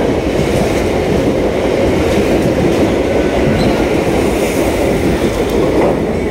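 Mumbai suburban EMU local train running past at speed close by: a steady, loud noise of its coaches and wheels on the rails.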